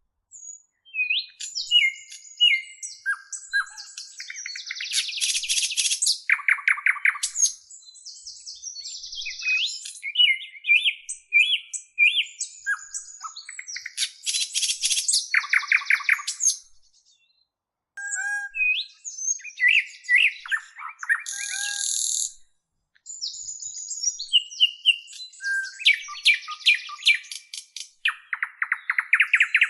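Small birds chirping: quick, varied chirps and short pitch glides, with a buzzy rattling trill every several seconds. The chirping stops briefly twice, a little after halfway through and again a few seconds later.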